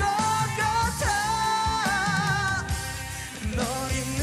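A male singer belting a high ballad melody live into a microphone over band accompaniment, holding a long wavering note with vibrato about a second in.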